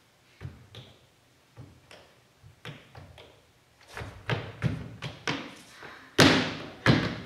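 A run of sharp thumps and taps on a stage: a few scattered knocks at first, then from about four seconds in a steady series of about three a second that grows louder, the loudest about six seconds in.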